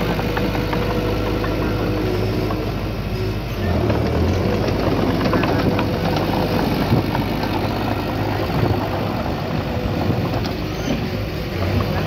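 Heavy diesel engine of earthmoving equipment running steadily, with the engine note changing and growing louder about four seconds in.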